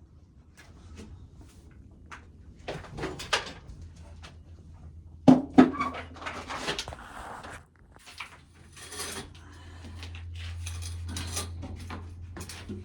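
Dry shelled corn and cobs being handled: irregular clicks, rattles and rustles of kernels and leaves, over a low steady hum.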